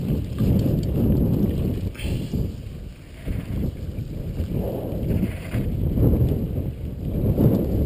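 A mountain bike riding fast down a dirt trail: low, uneven wind noise on the microphone mixed with tyres on loose dirt and the bike rattling over bumps, swelling and easing, with brief louder rasps about two and five seconds in.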